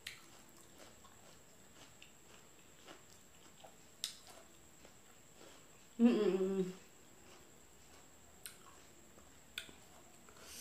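Close-up eating sounds: a few sharp, wet clicks from chewing and handling a piece of fried chicken. About six seconds in, a short closed-mouth hum of the voice, under a second long, is the loudest sound.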